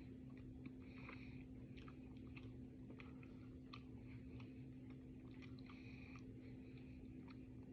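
Faint close-up chewing of a mouthful of cornstarch: soft wet smacking with many small irregular clicks, a few a second.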